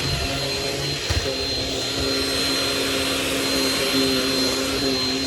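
Shark Rocket vacuum cleaner running steadily on carpeted stairs: an even motor whine with a constant high tone, and a brief knock about a second in.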